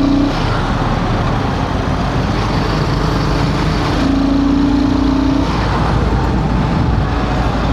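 Royal Enfield Himalayan 450's single-cylinder engine running on the move, with wind and road noise and traffic around. A steady tone sounds for about a second and a half, starting about four seconds in.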